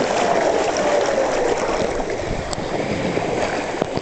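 Water in a water-park lazy river rushing and splashing steadily. A faint drawn-out tone falls slowly in pitch over the first second or so.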